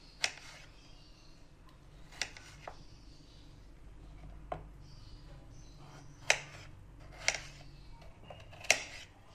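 Kitchen knife cutting peeled potato into cubes on a ceramic plate, the blade clicking sharply against the plate about seven times at uneven intervals.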